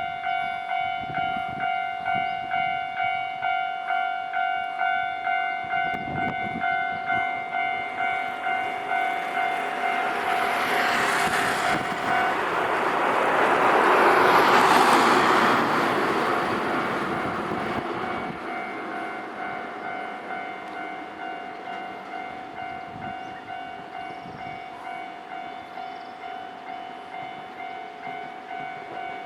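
Japanese level-crossing alarm ringing in a steady ding-ding, about two strikes a second. A Nankai Koya Line train passes through the crossing, building up to its loudest about halfway through and fading away again, while the alarm keeps ringing.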